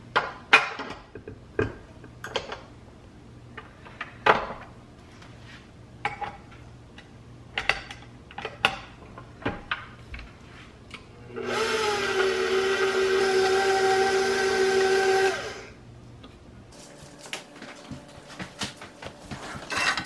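Stainless steel mixing bowl clanking as it is set onto a stand mixer, then the stand mixer's motor starting up with a rising whine and running steadily for about four seconds before stopping, mixing flour into batter.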